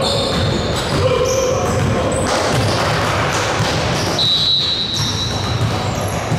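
A basketball being dribbled and bounced on a gym floor during a game, in a large echoing hall. There is a high squeak about four seconds in.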